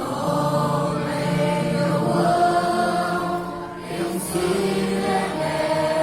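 Children's choir singing long held notes, with a short break in the sound about three and a half seconds in.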